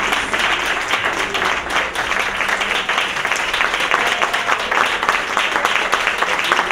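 Audience applauding: many hands clapping in a dense, steady patter as the dance piece ends.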